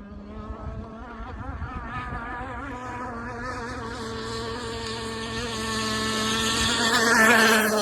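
Gas two-stroke engine of an RC scale hydroplane running at speed with a high, buzzing note. It grows steadily louder as the boat approaches, then passes close about seven seconds in, with a slight drop in pitch as it goes by.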